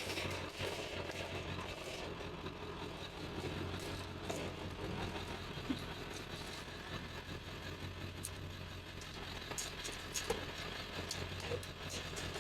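Steady low hum like an idling engine, with scattered light clicks and taps.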